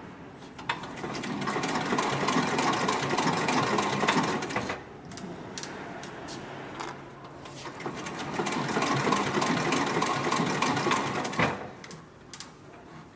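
A 204-102 MD heavy-duty decorative-stitch sewing machine for upholstery and leather, stitching in two runs of rapid needle strokes. It eases off about 5 s in, picks up again at about 7.5 s, and stops about 11.5 s in.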